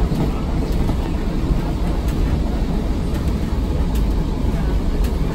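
Century-old railway carriage in motion, heard from inside: a steady low rumble of the wheels and running gear on the track, with a few faint clicks.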